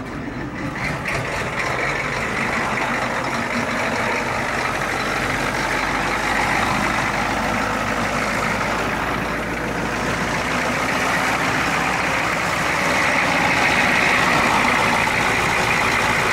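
The 6.9-litre IDI V8 diesel of a 1991 Ford F-250 idling steadily after a warm start. It gets somewhat louder about twelve seconds in.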